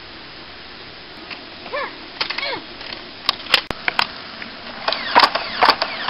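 Nerf foam-dart blasters firing as sharp, scattered clicks and snaps, starting about three seconds in and coming thicker toward the end, with short high children's shouts from about two seconds in over a steady hiss.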